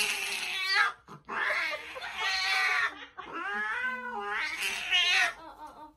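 Tabby cat yowling in protest while held and restrained: about four long, drawn-out yowls that waver in pitch, with short breaks between them, the last one ending shortly before the end.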